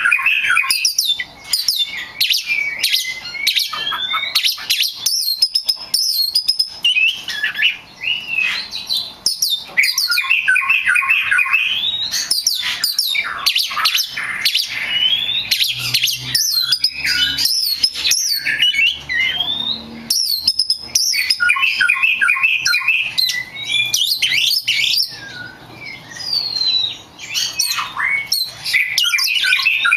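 Many small birds chirping and calling over one another: a dense chorus of quick, high chirps and short squawks with only brief gaps.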